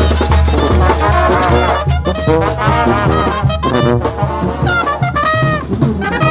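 Oaxacan brass band (banda de música) playing live: trumpets, trombones and saxophones over a steady bass and drum beat.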